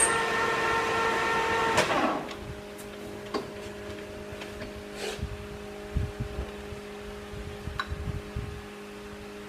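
Metal lathe winding down after a cut, the machine sound fading out about two seconds in. After that a steady low hum remains, with a few light knocks and clicks.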